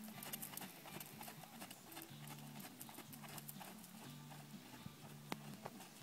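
Faint hoofbeats of a horse trotting on a sand arena footing, over quiet background music with a low, stepping melody. A single sharp click about five seconds in.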